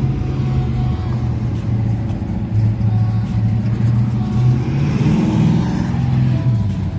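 A car engine running steadily, with one rev that rises and falls back about five seconds in.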